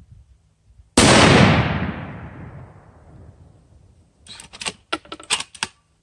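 A single shot from a Savage Trophy Predator Hunter bolt-action rifle in .243 Winchester, its report dying away over about two seconds. About three seconds later comes a quick run of sharp metallic clacks as the bolt is worked to eject the spent case and chamber the next round.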